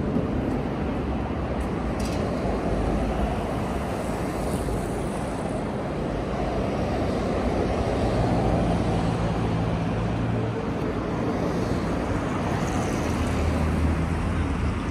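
City street traffic: a steady wash of passing cars, with a vehicle's low engine hum rising out of it about eight seconds in and again near the end.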